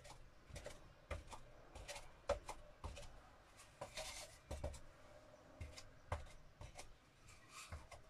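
Cardboard toilet roll tube dabbed again and again onto paper to print paint rings: quiet, irregular taps with a few short rubbing rustles of paper.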